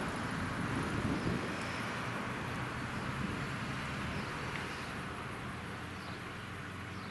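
Freight train's wagons rolling away over the rails, a steady rumble of wheels on track that slowly fades.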